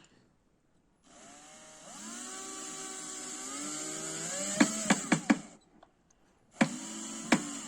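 Handheld cordless power tool motor whirring up to speed, then slowing in pitch as it works into the wood, with a few sharp clicks before it stops. It then runs again briefly near the end.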